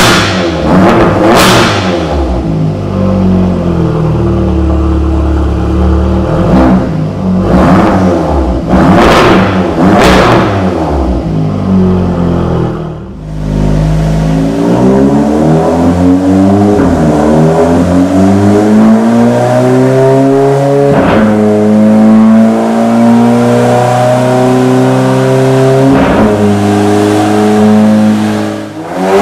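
Audi S3 8V's turbocharged 2.0-litre four-cylinder through a 3-inch (76 mm) EGO-X valved exhaust. It is first revved in short blips, each ending with a sharp crack. After a cut it pulls up through the gears on a dyno, its pitch rising in each gear, with a crack at each of three upshifts about five seconds apart.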